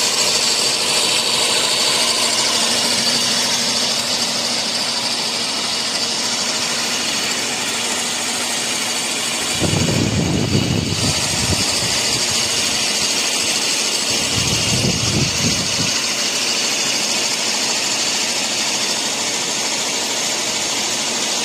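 Bevel-gear mixer grinder running: a 230-volt single-phase induction motor turning the mixer jar through a belt pulley and a 1:1 bevel gear, giving a steady whirring whine. Twice, about ten and fifteen seconds in, a lower rumble swells in briefly.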